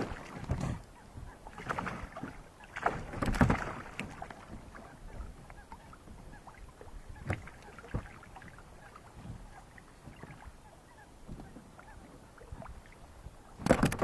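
Handling noises in a small boat while fish are put into a keepnet: a few short, noisy bursts of movement in the first four seconds, then scattered knocks and clicks, and another loud burst near the end.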